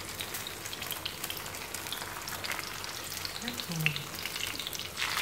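Tofu skin sheets sizzling and crackling as they fry in hot oil in a pan, moved about with chopsticks and a wooden spatula. The crackling grows louder near the end.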